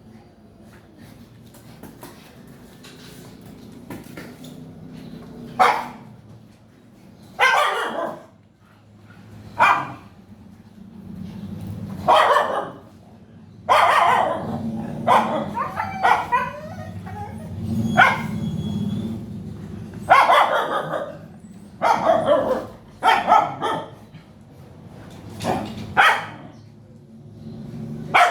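Dog barking repeatedly: single barks and short runs of barks every second or two, starting about six seconds in, over a low steady rumble.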